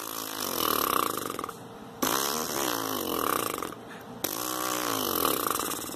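A brass player buzzing his bare lips, without a mouthpiece, three times. Each buzz glides down in pitch as the lips go from tight to loose: a warm-up and relaxation exercise for the lips and cheeks.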